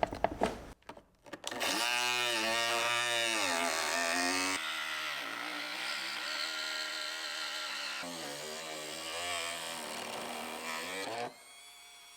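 Handheld power tool cutting away material to make room for a flush-mount tail light. Its motor whine dips in pitch and recovers again and again as it bites and eases off, then stops near the end.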